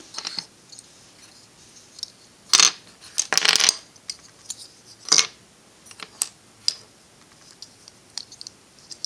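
Small plastic pieces of a disassembled Rubik's 2x2x4 tower cube clicking and clacking as they are picked up, set down on the tabletop and hooked together. Scattered sharp clicks, with a dense cluster about three seconds in.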